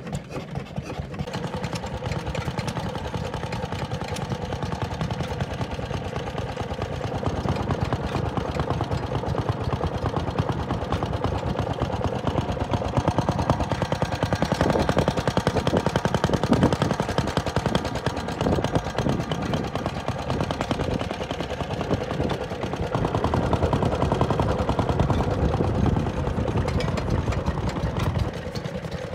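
Vintage stationary engine running, its firing a rapid, steady beat. It grows louder about a quarter of the way in and drops back just before the end.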